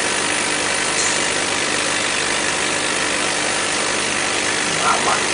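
Steady drone of a laser cutting machine's ventilation fans and pumps running, with a faint steady hum. Two light knocks near the end.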